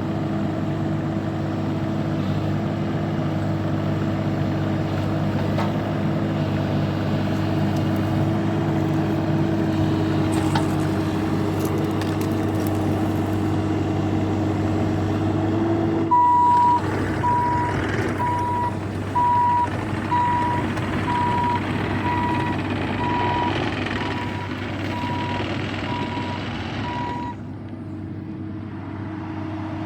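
A compact diesel machine's engine running steadily. About halfway through, a reversing alarm starts beeping about once a second and keeps on until near the end.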